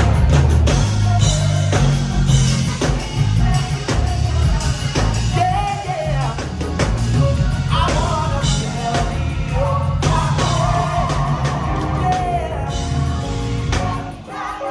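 Rock music: a drum kit and bass with a singing voice over them.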